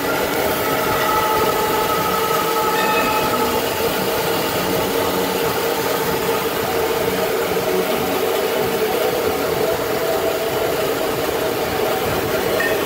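Automatic band-saw roll cutting machine running steadily: a continuous mechanical drone with a few held whining tones.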